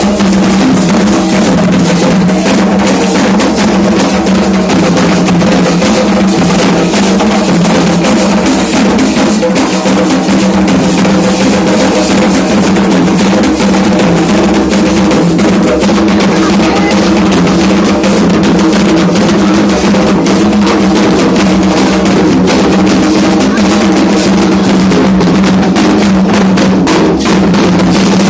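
Candomblé ritual drumming on atabaque hand drums, loud and unbroken, with a dense run of rapid strokes throughout.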